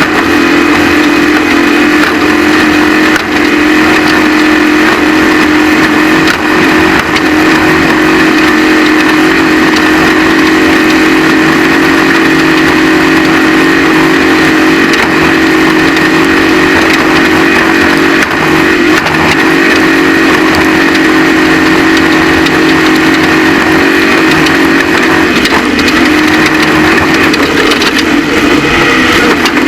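Off-road race vehicle's engine running hard at steady high revs, loud and continuous, its pitch holding almost level with a brief dip about 26 seconds in.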